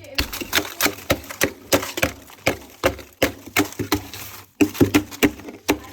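Ice built up inside a chest freezer being chipped and hacked at: a rapid, irregular run of sharp knocks and cracks, about three a second, louder near the end.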